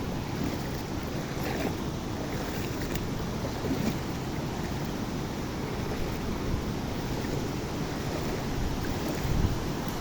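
Steady rushing of a large waterfall, with wind buffeting the microphone.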